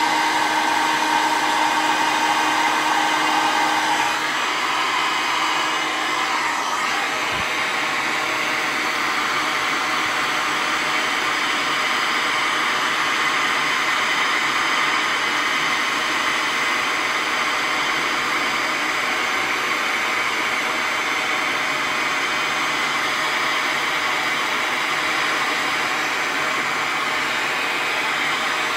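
Electric heat gun running steadily, blowing hot air onto a lead jig head to heat it for powder coating. About four seconds in its tone changes and it gets slightly quieter, then it runs on evenly.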